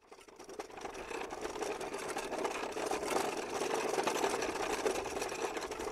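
A machine running with a fast, steady mechanical clatter, fading in over the first second.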